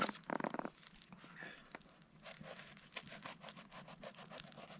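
Knife cutting open a campfire-baked stick bread: crackling and tearing of the crust, a run of small sharp clicks, after a brief pitched sound at the start.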